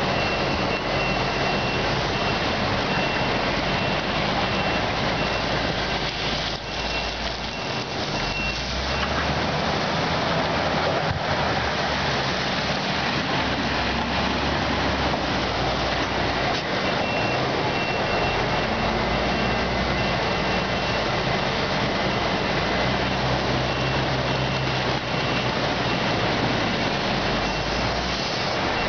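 Cummins diesel engine of a Lonking CDM6365H 34-tonne excavator running under hydraulic load as it digs, its note rising and falling, over the rush of a fast river. A high, repeating alarm beep sounds through much of it, pausing for several seconds in the middle.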